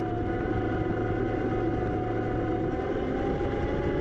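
Vehicle-mounted electric winch whining steadily under heavy load, its pitch sagging slightly, as it drags a bogged 4x4 through soft sand against a buried-tyre anchor that is holding, over a low rumble.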